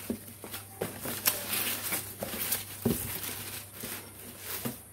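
Packing wrap rustling and crinkling as a hand digs a wrapped porcelain dish out of a cardboard box, with a few soft knocks against the box.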